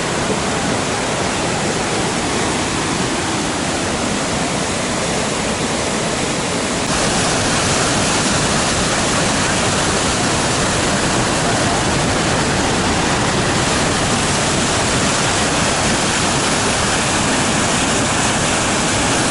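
Loud, steady rushing of fast-flowing floodwater, an even noise with no distinct splashes, stepping up slightly in loudness about seven seconds in.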